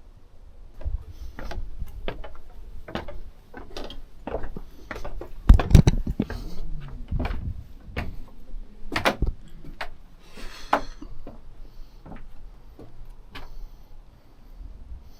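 Irregular clicks and knocks at an uneven pace, with one loud thump about five and a half seconds in and a brief rustle a little before eleven seconds.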